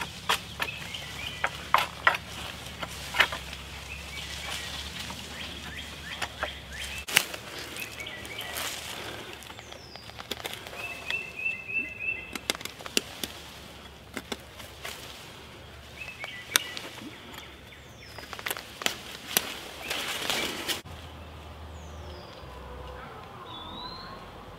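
Saplings being cut and trimmed with a fixed-blade knife: a run of sharp cracks and snaps of small branches, with leaves and brush rustling, stopping abruptly about 21 seconds in. Birds chirp in the background.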